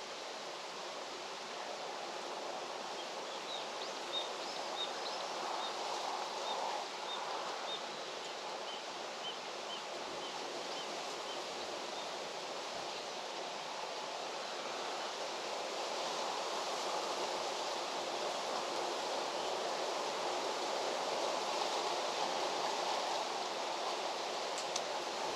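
Steady outdoor ambience: an even rushing hiss of the kind made by breeze in foliage or running water. In the first half, a small bird gives a run of short, high chirps, about two a second.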